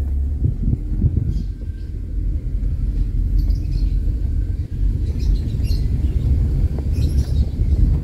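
Low, uneven rumble of a Honda sedan driving slowly, heard inside the cabin: tyre and road noise from a rough lane with the engine's hum beneath it.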